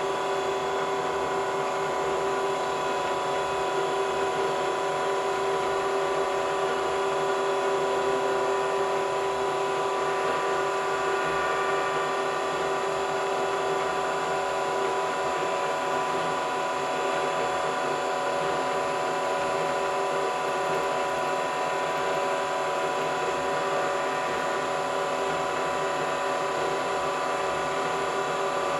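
Vertical milling machine running at a steady spindle speed, a constant hum with several pitched tones from its motor and head, turning an edge finder with no cutting going on.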